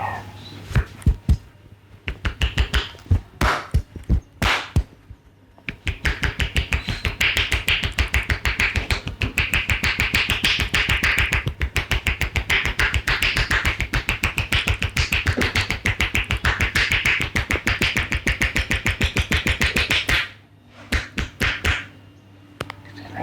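Massage tapotement: the barber's hands striking the client's head and back with sharp slapping claps. A few single strikes come first, then about six seconds in a fast, even rhythm of several strikes a second runs for about fourteen seconds before breaking into a few last strikes.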